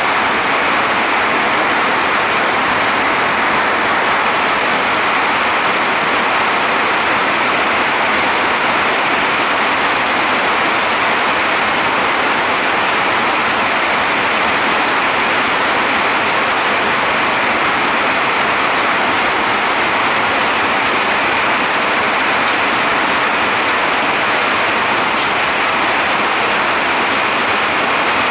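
Hailstorm: hail and rain pouring down hard, a dense, steady roar with no let-up.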